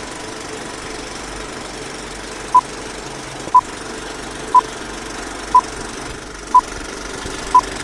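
Film-leader countdown: a short, high beep once a second, six in all starting about two and a half seconds in, one for each number. Under them runs the steady whirring rattle of a film projector.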